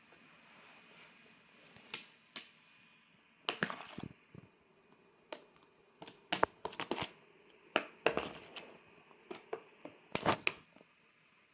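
An uchiwa, a round hand-held fan, crackling and rustling in irregular sharp bursts as a cat swats and grabs at it.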